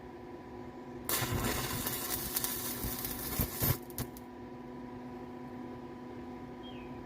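Stick-welding arc from a 3/32-inch 7018 rod at 88 amps laying a tack weld: a crackling, sizzling hiss for about three seconds that then stops, followed by a sharp click.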